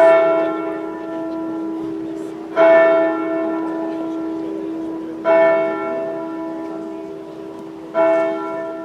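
A single church bell tolling slowly, struck four times about every two and a half seconds, each stroke ringing on into a long steady hum: a funeral toll.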